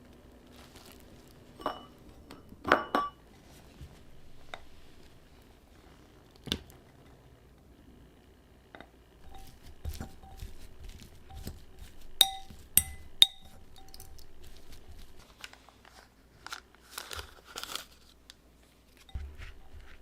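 Kitchen prep handling sounds: scattered crinkling, a few knocks, and a utensil clinking against a bowl about twelve to thirteen seconds in.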